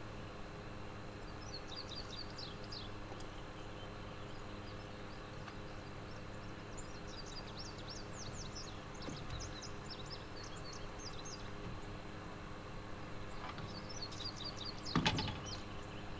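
Birds chirping in quick clusters of short, high notes over a steady low hum, with a brief clatter near the end that is the loudest sound.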